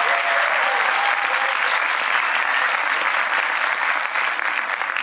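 Audience applauding steadily, dense clapping that eases slightly toward the end.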